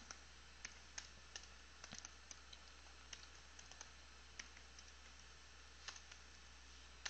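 Faint, scattered keystrokes on a computer keyboard: irregular single clicks with gaps between them, over a steady low hum.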